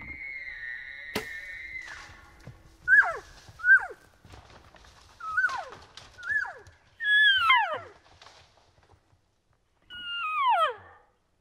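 Elk calling: a long, high, held bugle whistle, then a string of about six short calls that each slide steeply down in pitch, the last two loud with a doubled tone. A single sharp knock comes about a second in.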